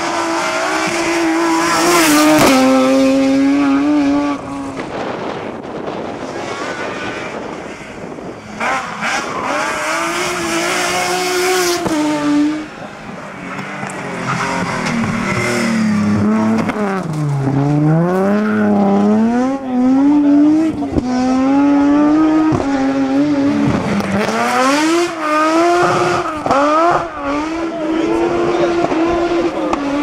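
Nissan 370Z rally car's V6 engine revving hard at racing speed through gear changes, the revs climbing and falling again and again. About halfway through they drop steeply, as under braking, and then climb back up.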